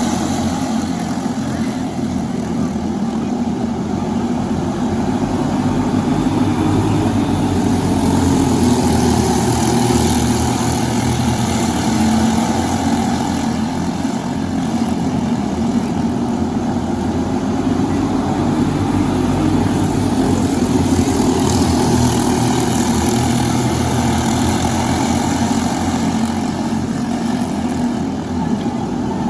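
Briggs & Stratton LO206 kart engine, a single-cylinder four-stroke, running continuously, its pitch rising and falling slightly.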